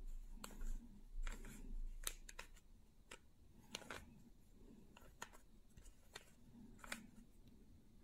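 Plastic 3x3 Rubik's cube being turned by hand: irregular clicks and clacks as its layers are twisted and snap into place, some coming in quick runs.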